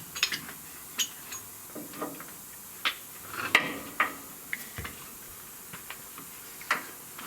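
Scattered light clicks and knocks, the loudest about three and a half seconds in, as oil-filling gear is pulled from the engine's oil fill opening and handled.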